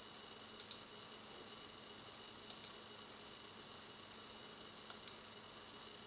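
Near silence with a faint steady hiss, broken by three faint pairs of computer mouse clicks about two seconds apart.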